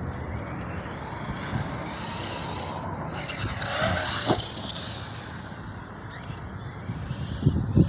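Arrma Notorious 6S RC stunt truck's brushless motor whining as it speeds up and slows, with a single sharp knock about four seconds in.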